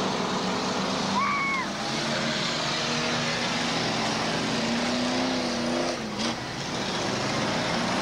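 Demolition derby cars' engines running and revving together in a steady din, with a short high tone just over a second in and a brief burst of noise about six seconds in.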